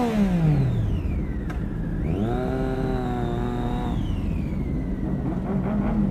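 Sport motorcycle engine revved from idle, held at high revs for about two seconds, then let drop back to idle. Just before that, a previous rev is dying away.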